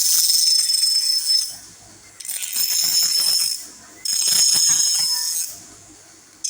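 Small DC-motor mini grinder running in three short bursts of about a second and a half each, with a high-pitched whine and a rattling hiss, then a brief blip near the end.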